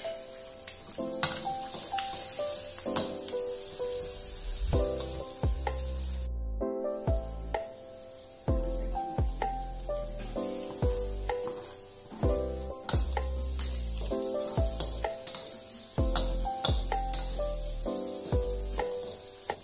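Fried rice, egg and green onion sizzling in a metal wok while a metal spatula stirs and scrapes them, with occasional clicks of the spatula. Background music with a melody and repeated bass notes plays over it, and there is a brief dropout about six seconds in.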